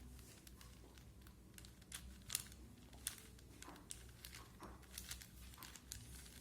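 Faint, irregular plastic clicks and clacks of a 4x4 Rubik's cube's layers being turned, the sharpest about two and a half seconds in.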